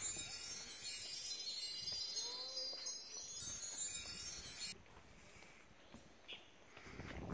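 Twinkling, magic-sparkle chime sound effect: a dense cascade of high, bell-like tinkles that cuts off suddenly about four and a half seconds in. Only faint outdoor ambience follows.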